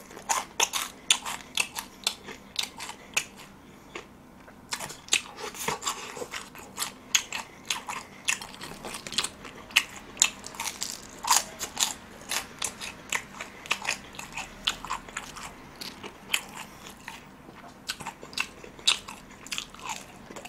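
Crunching and chewing of extra-crispy fried chicken: many quick, sharp crackling bites, with a short lull about four seconds in.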